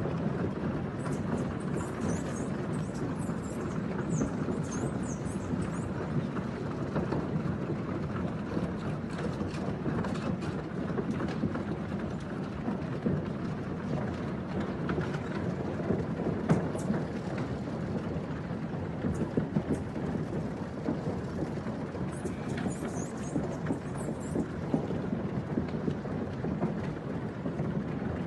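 Dozens of cattle crossing a wooden trestle bridge: a steady, dense rumble and clatter of many hooves on the plank deck.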